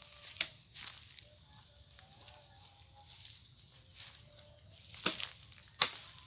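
Steady high-pitched drone of insects such as cicadas or crickets, broken by three sharp knocks: one about half a second in and two close together near the end.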